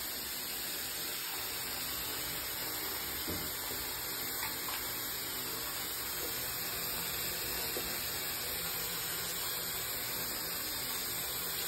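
A bathtub filling from the tap: a steady rush of running water into the tub.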